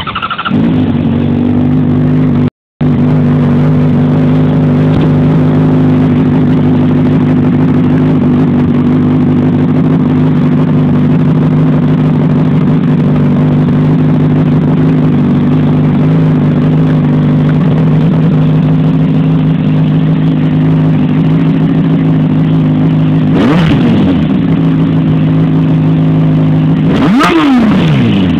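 A 2006 Honda CBR600RR's inline-four engine, breathing through an aftermarket MIVV twin-can exhaust, catches at the start and settles into a steady idle. It is blipped once with a quick rise and fall in revs a few seconds before the end, then twice in quick succession near the end. The sound drops out for a moment shortly after the start.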